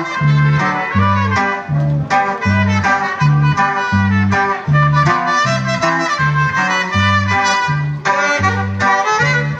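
Dance music from a band with brass and reed instruments, over a steady two-beat bass line that alternates between low notes about twice a second.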